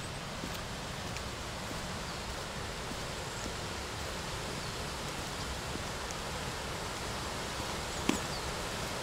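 River water rushing through a narrow rocky gorge and falls, a steady rush that grows a little louder, with one sharp click about eight seconds in.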